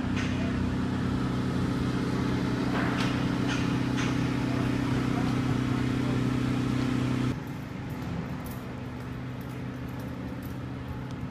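Steady low hum of an idling vehicle engine on a city street, with a few short clicks. About seven seconds in it cuts off abruptly to quieter indoor room tone.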